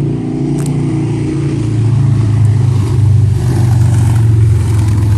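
A motor engine running steadily with a low hum, growing louder about two seconds in.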